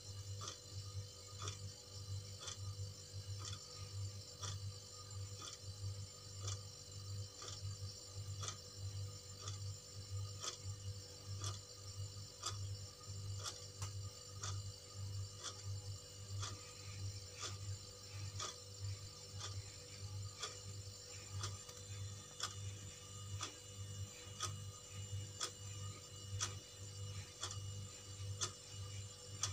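Wall clock ticking steadily, sharp even clicks with a low pulsing hum beneath.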